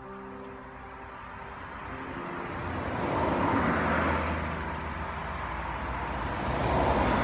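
Background music fading out in the first two seconds, giving way to the steady rushing noise of passing motor traffic, which swells about four seconds in and again near the end.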